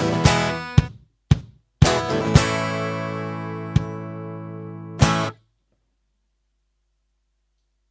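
Acoustic guitar strumming chords over the Finhol Stompcon stomp box's percussion hits, roughly two a second. A last chord rings with a few more hits and stops about five seconds in.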